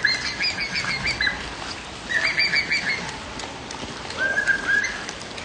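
A bird calling in three quick bouts of short, high chirps, about five to a bout, over a steady hiss of rain.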